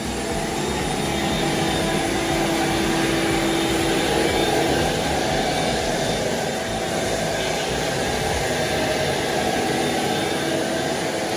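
A motor-driven machine running steadily, giving an even rushing whir that does not change much.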